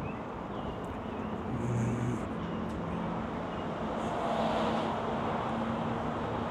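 Street traffic noise. A car passes about four to five seconds in over a steady low hum of engines.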